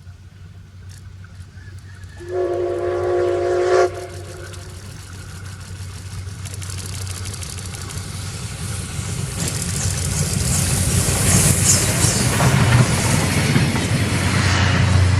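Steam locomotive C57 180 sounds its whistle once, a steady chime lasting about a second and a half, a couple of seconds in. Then the locomotive and its coaches come on, the rumble and wheel noise growing steadily louder, with a level-crossing bell ringing rhythmically underneath.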